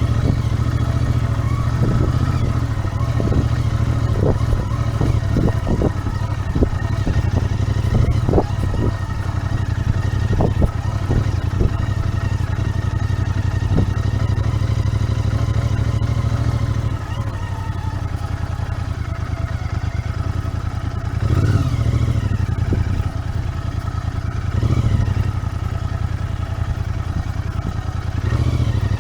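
Royal Enfield Interceptor 650's 648 cc parallel-twin engine running steadily on the road, with a string of sharp knocks and rattles in the first half. About two-thirds of the way in the engine drops quieter, then surges briefly twice.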